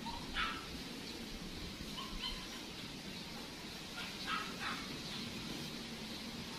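A dog barking a few short times, over steady background noise.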